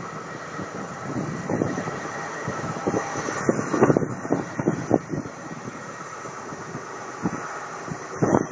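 High Speed Train (InterCity 125) power car's diesel engine working steadily as the train pulls out of the station.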